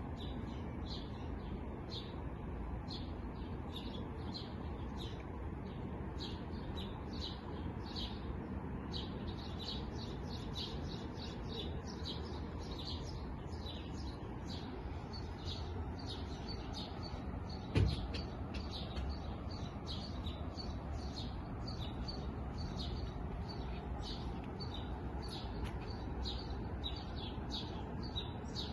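Small songbirds chirping continuously, many short high chirps following one another over a steady low rumble. A single sharp thump sounds about eighteen seconds in.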